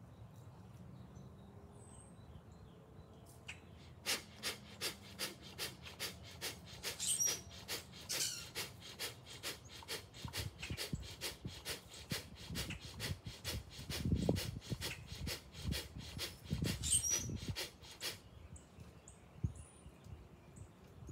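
Rapid, forceful bhastrika/kapalabhati pranayama breathing through the nose: an even train of sharp breaths, about three a second, that starts about four seconds in and stops abruptly near the end.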